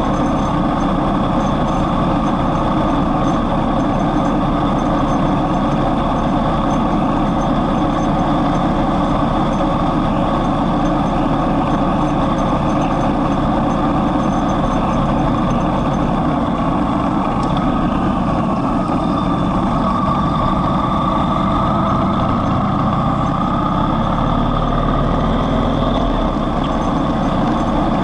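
Yamaha MT-01 motorcycle's V-twin engine running steadily at a cruise of about 55 km/h, with wind rushing over the microphone.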